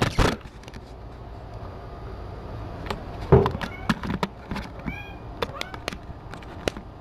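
Knocks and rubbing from the camera being handled at the start, and a heavier thump a little past three seconds. This is followed by several short, high, rising kitten mews between about four and six seconds in.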